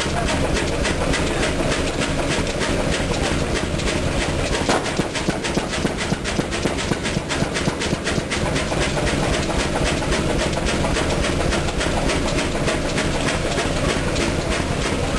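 A 1924 Chicago Pneumatic 50 hp horizontal diesel engine running steadily, with a rapid, even mechanical clatter over a low hum.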